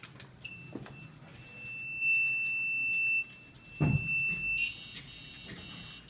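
Active buzzer module of an Arduino PIR motion alarm sounding as the circuit powers up: a steady high-pitched tone for about four seconds, then a rougher beeping about twice a second. A single knock comes just before the tone changes.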